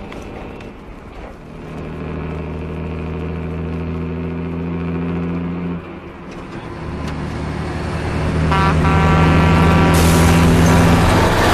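The truck's big diesel engine runs under load, drops for a moment about six seconds in, then builds again and grows louder. A loud, harsh rush of noise joins it near the end.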